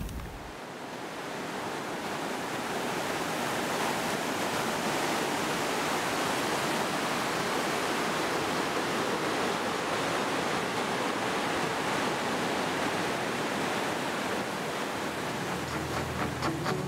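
Steady rush of running water, a mountain stream or torrent, swelling in over the first couple of seconds. Guitar music comes in near the end.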